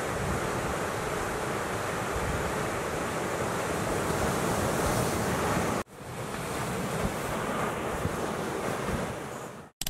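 Ocean surf breaking and washing, with wind buffeting the microphone. The sound drops out abruptly about six seconds in, comes straight back, and fades away near the end.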